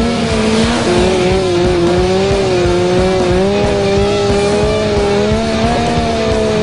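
Ford Mustang drifting, its tyres squealing in one long, wavering note with the engine running underneath.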